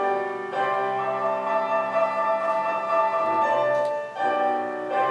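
Instrumental introduction of a musical-theatre song: sustained orchestral and keyboard chords, changing about half a second in and again about four seconds in, before any singing.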